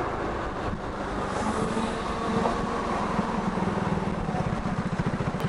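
Piaggio MP3 250 scooter's single-cylinder four-stroke engine running while riding in city traffic, its pulsing growing more distinct in the second half as the scooter closes up behind a braking car.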